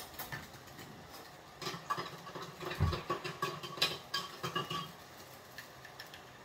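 Light clinks and knocks of kitchen utensils and crockery being handled, with a dull thump about three seconds in, then faint ticks.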